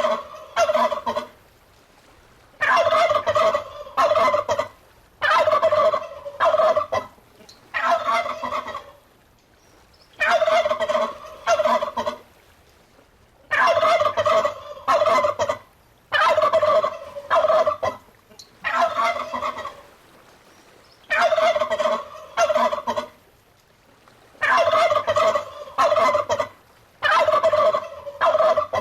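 Turkey gobbling over and over: rattling gobbles about a second long, often two in quick succession, with short quiet gaps between them.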